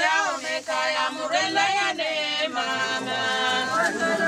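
Mourners singing a slow lament, their voices held on long, wavering notes.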